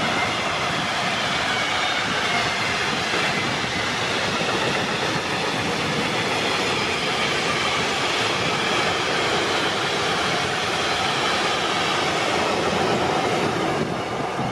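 Long freight train of bogie tank wagons rolling past at speed: a steady rumble and rattle of steel wheels on the rails, with a faint high whine over it. It starts to fade at the very end as the last wagon goes by.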